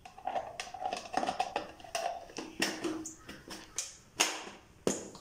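Pull-string hand chopper cutting onion and green chillies: irregular clattering clicks, about three a second, as the cord is pulled again and again and the blades spin in the plastic bowl.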